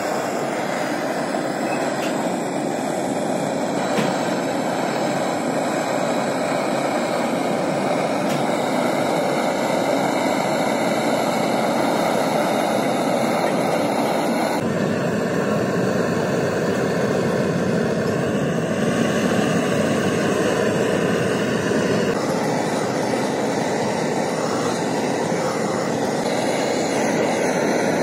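A machine running steadily with a loud, even whirring noise. Its tone changes abruptly about halfway through and again about three-quarters of the way through.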